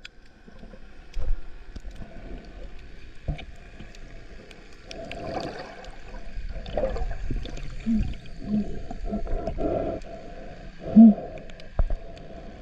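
Muffled water gurgling and sloshing, as heard by a camera held underwater while snorkelling. A few short low hums come through in the second half.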